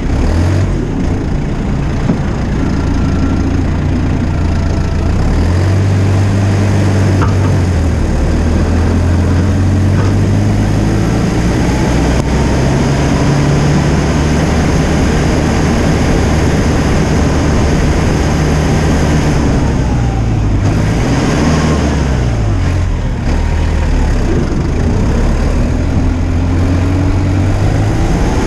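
Tractor engine running steadily while it pushes snow with a front-mounted containment plow. Its pitch steps up a few seconds in, then dips and climbs again about two-thirds of the way through.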